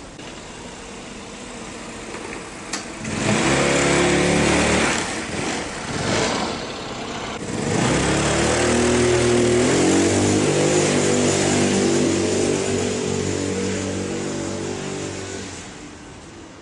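Small motor scooter pulling away. Its motor rises in pitch as it speeds up about three seconds in and drops off, then rises again about eight seconds in and runs steadily before fading as it rides off.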